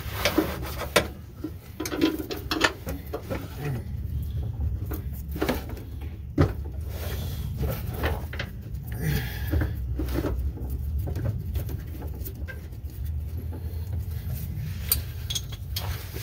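Hand tools clicking and knocking at uneven intervals as a socket on an extension and a ratchet are worked onto a bolt of a transmission support beam under a van. A steady low hum runs underneath.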